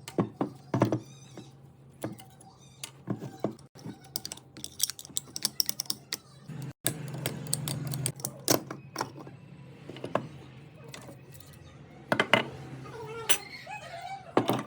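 Irregular clicks and knocks of small hard parts being handled, over a steady low hum.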